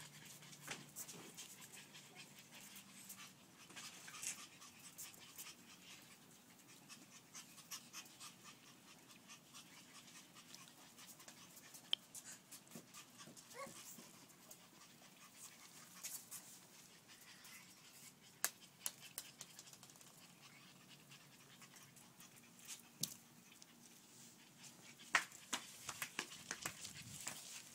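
French bulldog puppies panting faintly as they play, with many scattered light clicks and scuffs throughout.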